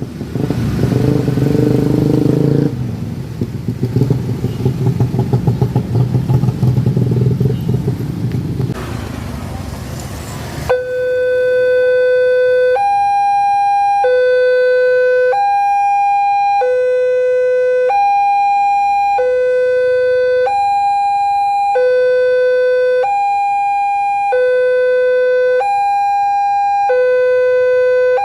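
A train passes close by for about the first ten seconds, its engine and wheels loud and rhythmic. Then the railway level crossing's electronic warning siren sounds on its own, alternating a lower and a higher tone, each held a little over a second, over and over.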